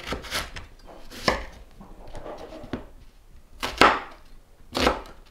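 Chef's knife chopping through carrot and then onion onto a wooden cutting board: single sharp knife strikes, about five, roughly a second apart.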